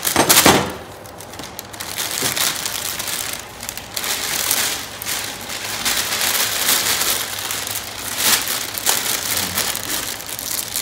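Thin clear plastic bag crinkling and rustling as it is handled and worked open, with uneven crackles, loudest at the very start.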